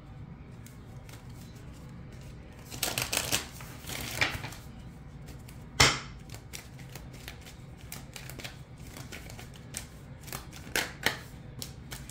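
Tarot cards being shuffled and handled: a run of crisp card snaps and flicks, the sharpest about six seconds in, as cards are drawn from the deck.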